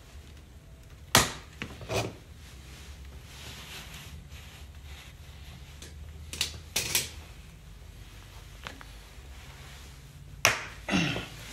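Hand tool clicking and scraping on the screws of the fuel pump unit atop a 1994 Jeep YJ's gas tank, in three short pairs of sharp clicks: about a second in, around six and a half seconds, and near the end.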